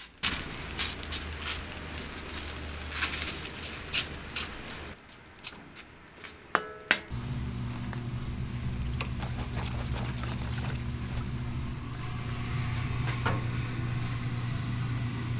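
A plastic rice paddle scraping and turning cooked glutinous rice in an aluminium pan, with scattered clicks, then a sharp clank with a short ringing tone about six and a half seconds in. After that a steady low hum runs under light handling noises as gloved hands press the rice into a pan.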